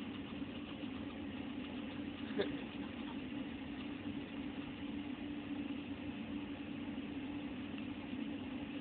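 Glass-forming machinery running with a steady low hum and hiss, with one short click about two and a half seconds in.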